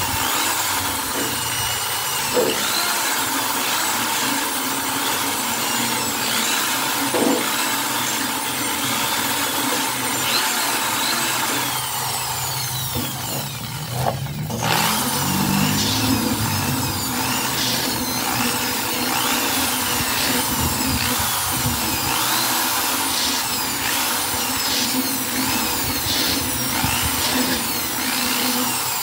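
Handheld electric drill running with its bit against the sheet-metal case of an arc welder. It dips briefly about fourteen seconds in, then picks up speed again.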